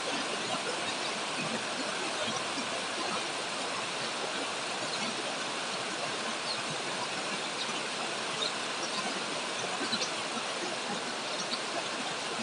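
Heavy rain pouring down on a grapevine canopy: a steady, even hiss with scattered faint ticks of individual drops.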